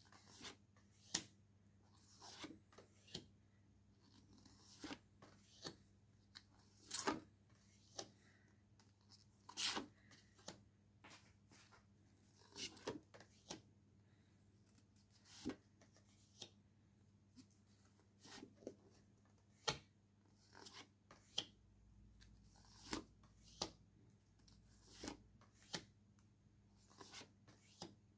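A stack of photo postcards leafed through by hand, one card at a time: short, dry scrapes and flicks of card sliding on card every second or two.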